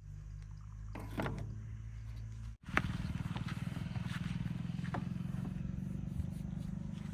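Heavy diesel engines of earthmoving machinery running, with occasional clanks. About two and a half seconds in, the sound cuts abruptly to a louder engine with a rapid, even pulsing.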